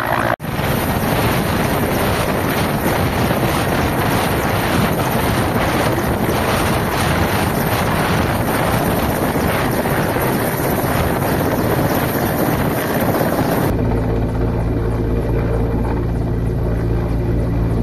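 Mi-8-type twin-turbine military helicopter hovering overhead: turbine whine and main-rotor noise, with wind buffeting the microphone. There is a brief dropout about half a second in. About 14 s in, the sound changes to a steadier, lower drone from the helicopter at a greater distance.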